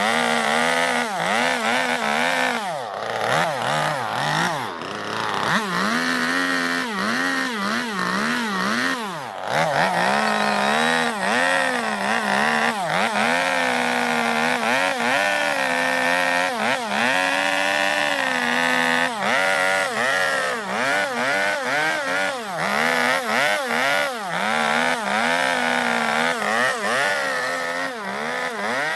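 Gasoline two-stroke chainsaw cutting into zelkova wood to hollow out a bowl, running the whole time. Its pitch dips and rises again and again as the chain bogs down in the cut and picks up speed.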